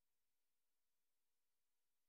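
Near silence: only a faint steady hiss from the recording itself.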